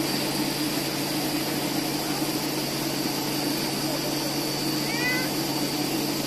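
Electric mixer grinder running steadily, its motor giving an even hum with a steady high tone as a small jar is held down on top.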